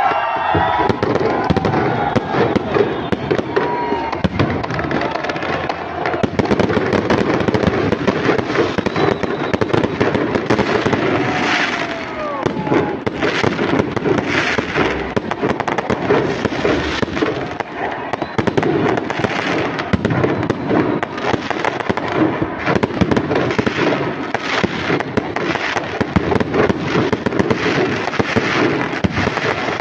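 Fireworks going off in a dense, continuous barrage of rapid crackles and bangs, with people's voices underneath.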